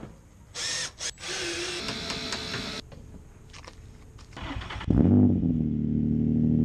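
Short bursts of tool noise, then about five seconds in the Nissan 350Z's 3.5-litre V6 starts with a brief rev and settles into a steady idle.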